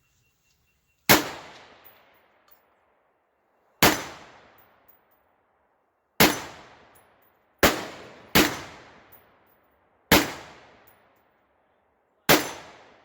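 AR-15 with a 14.5-inch barrel firing 5.56 rounds one at a time: seven shots spaced unevenly, one to three seconds apart, each followed by a fading echo.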